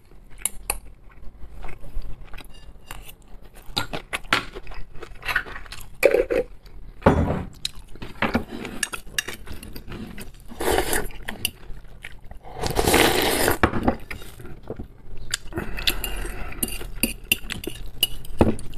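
Close-miked eating: a metal spoon clinking against a glass jar and a fork tapping and scraping a porcelain bowl, with chewing and slurping of instant noodles. A longer, louder stretch of slurping comes about two-thirds of the way through.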